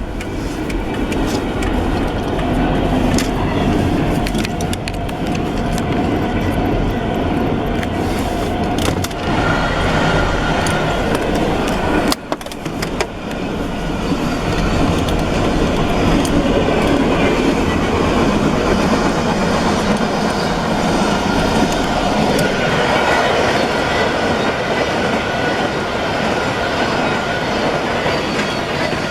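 Freight grain train rolling along the track: the steady noise of its wheels and cars on the rails, with faint whining tones over it and a brief drop in level about twelve seconds in.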